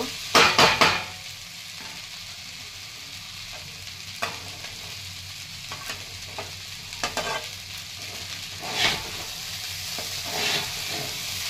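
Metal spatula stirring and scraping fried rice in a metal kadhai over a steady low sizzle. There is a burst of loud scrapes about half a second in, then a few single scrapes spread through the rest.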